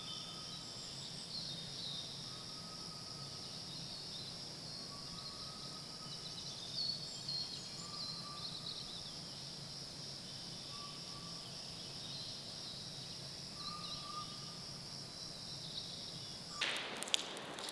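Steady high-pitched insect chorus with scattered bird chirps, a short mid-pitched call repeating every second or two, and a low steady hum underneath. Near the end it gives way abruptly to a loud crackling, rustling noise with sharp clicks.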